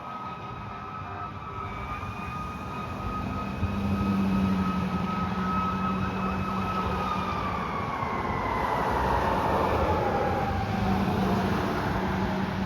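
2016 Sutphen Monarch fire engine going by with its siren sounding: a steady high wail whose pitch slides down from about seven seconds in. A low steady tone and the noise of the passing truck grow louder a few seconds in.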